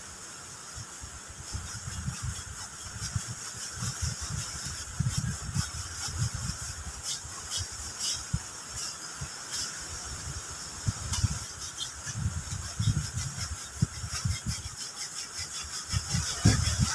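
Irregular low knocks and rubbing of wooden poles being handled and fitted into a shelter frame, with a few sharp clicks, over a steady high insect chorus.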